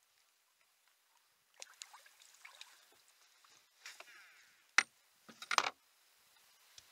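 Light splashing as a fish is netted alongside a boat, then, about five seconds in, a sharp knock and a brief clatter as the landing net and fish come down on the boat deck.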